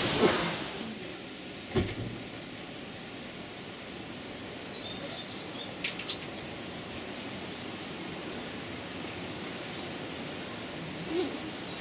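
Small birds chirping over a quiet outdoor background, with a dull thump about two seconds in, a pair of sharp clicks midway and another thump near the end. A loud hiss dies away in the first second.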